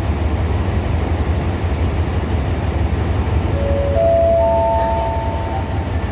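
SRT Hitachi diesel-electric locomotive idling at a standstill, a steady low rumble. About three and a half seconds in, a public-address chime sounds three rising notes one after another, held together until near the end, as a lead-in to an announcement.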